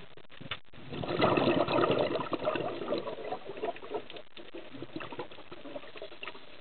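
Scuba diver's exhaled breath bubbling out of the regulator, heard underwater: a gurgling rush of bubbles starting about a second in, loudest for about two seconds and then tailing off, with faint scattered clicks around it.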